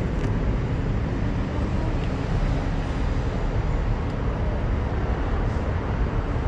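Steady low noise of an aerial tramway cabin travelling along its cables, heard from inside the cabin.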